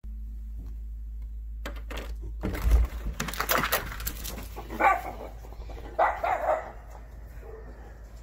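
Two schnauzers barking and scrambling out through an opened back door: a few clicks near two seconds, a loud clatter and rush around three seconds, then two bouts of barking about five and six seconds in.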